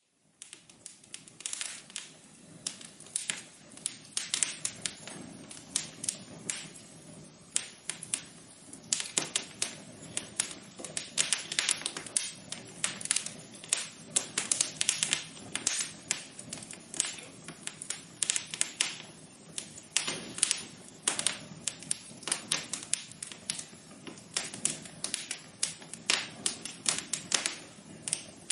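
Wood fire crackling in a fireplace: irregular sharp snaps and pops over a soft hiss. It fades back in after a brief dropout at the start.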